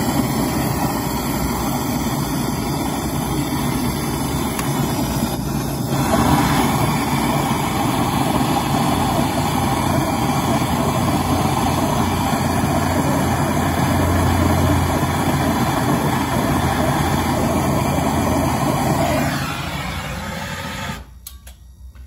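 Gas brazing torch flame burning with a steady rush while brazing the refrigerator compressor's copper process tube shut, sealing the refrigerant circuit. It gets louder about six seconds in and is shut off about a second before the end.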